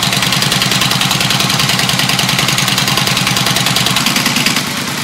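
Honda Shadow 750's V-twin idling with a steady, even pulse through a Roncar Scorpion 2Way exhaust whose valve is open on the sporty setting. A little after four seconds in the exhaust note drops and gets quieter as the valve is closed for the quiet setting.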